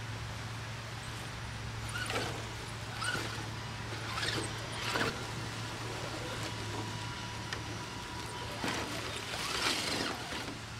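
An Axial SCX10 RC crawler driving through dry leaf litter: its tires crunch and crackle the leaves and twigs in several short bursts, the longest near the end, over a steady low hum.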